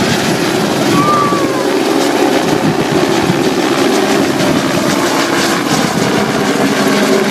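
News helicopter lifting off, its rotor blades chopping steadily and loudly over the engine's running sound at takeoff power.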